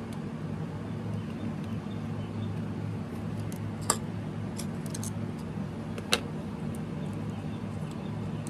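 Two sharp clicks about two seconds apart, with a few faint ticks between them, as the plastic shell of a Toyota key fob is pried apart, over a steady low hum.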